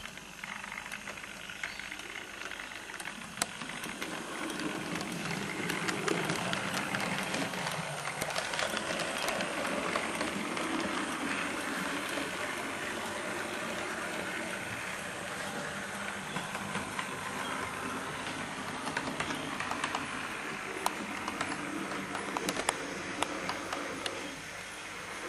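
Model railway train, a Great Western B set, pulling away and running along the track: a steady motor-and-wheel rumble with irregular clicks over rail joints, building over the first several seconds.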